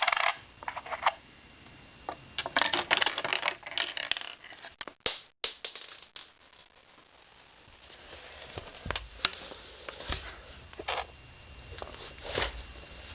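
Lego gumball machine being worked after a nickel goes in: irregular plastic clicks, rattles and scrapes from the Lego bricks and mechanism, turning to scattered duller knocks in the second half.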